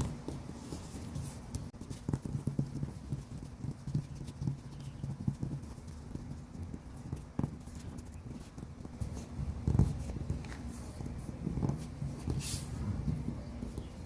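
Hands pressing and rubbing a KeelEazy adhesive keel-guard strip down onto a plastic kayak hull: irregular low knocks and thumps with rubbing, the loudest thump about ten seconds in.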